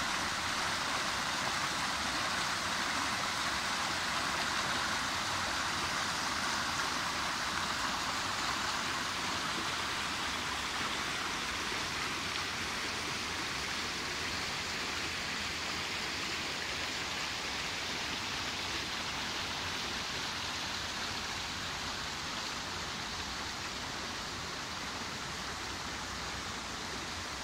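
Shallow stream rushing in white water over fallen logs and stones: a steady, even rush of running water that grows gradually a little quieter.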